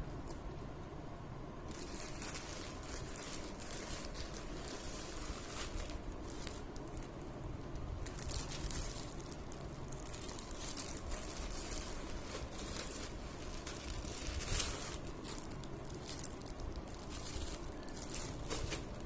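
Irregular rustling and crinkling of packaging and fabric being handled, with scattered small crackles over a steady low background noise.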